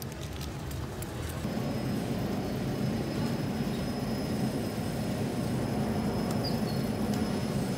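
Steady low hum of a grocery store's produce-section refrigeration and air handling, with a faint steady high whine, growing slightly louder about a second and a half in.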